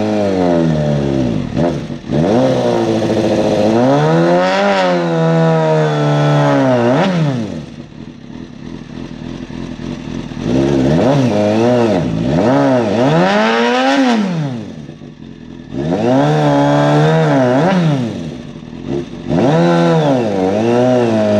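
Sportbike engine revving hard in about five repeated bursts, each rising then falling, as the bike strains on a tow rope to pull a car's crumpled frame straight.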